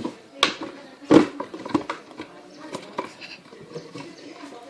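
Slime being stirred in a plastic container: irregular clicks, knocks and soft squelches of the stirrer and the sticky mixture, with one heavier knock about a second in.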